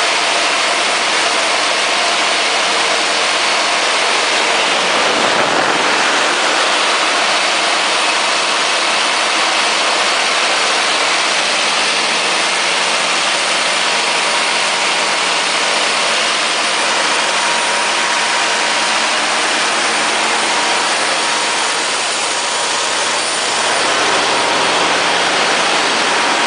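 Kohler 105 kW standby generator set's John Deere 6068 six-cylinder diesel engine running at a steady speed: a constant hum under a loud, even rush of noise, which shifts briefly about five seconds in.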